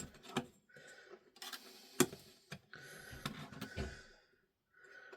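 A blade scratching through a foam cleaning pad along a ruler, in short rasping strokes, with sharp clicks of the ruler and blade being handled; the loudest click comes about two seconds in.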